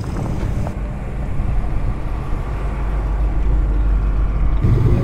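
Car engines running low and steady as cars drive slowly past, with the sound changing abruptly about a second in and again near the end.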